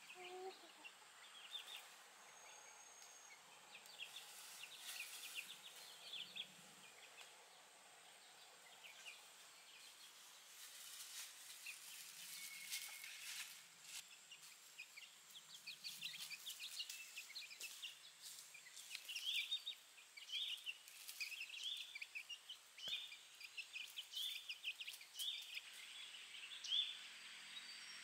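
Faint, short high chirps of birds, scattered at first and then repeating about one or two a second through the second half, with occasional light clicks and rustles.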